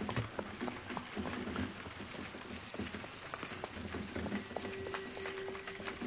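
Close-miked ASMR trigger sounds: a dense, soft crackling of many small clicks and taps over a light rustle. A faint steady tone sounds for about a second near the end.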